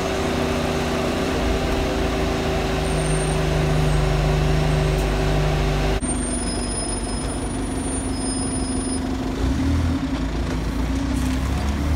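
Inside an Alexander Dennis Enviro200 bus: its loud cabin fan and engine give a steady hum. About halfway through the sound cuts to the same bus heard from the kerb, its engine running and picking up as it pulls away, with street traffic around.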